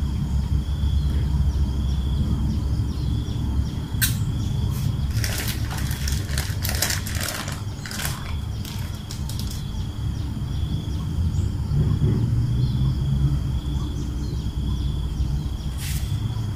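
A plastic spoon tipping salt onto a plastic plate: sharp clicks and crisp patters of falling grains between about four and eight seconds in, with one more click near the end as sugar is added. Underneath runs a steady low rumble with a faint high whine.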